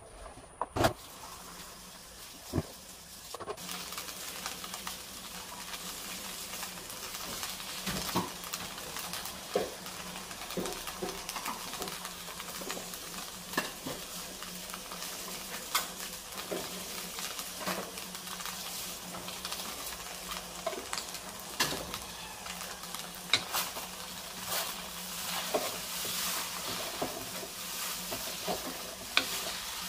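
Rice vermicelli (bee hoon) sizzling as it is stir-fried in a non-stick wok, with a wooden spatula scraping and knocking against the pan. The sizzle comes up a few seconds in and holds steady.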